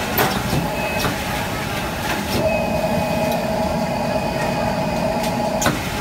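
ADT-B324 automatic sleeve placket folding machine with strong suction running: a steady machine noise, with a steady tone that comes on about two seconds in and cuts off suddenly near the end, and sharp clicks of its mechanism at the tone's start and stop and once or twice before.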